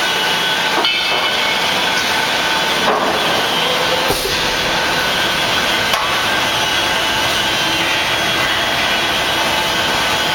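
Heavy steel-plate levelling machine running with a loud, steady mechanical noise, broken by a few sharp knocks.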